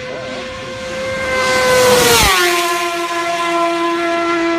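Suter MMX 500 V4 two-stroke racing motorcycle passing at full speed. The high engine note builds in loudness, drops sharply in pitch as the bike goes by about two seconds in, then carries on at the lower pitch as it pulls away.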